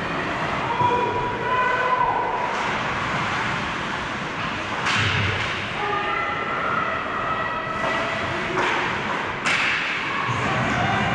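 Ice hockey game heard from behind the net in an indoor rink: a steady din with faint distant shouts, broken by several sharp knocks of stick and puck, the loudest about five and nine and a half seconds in.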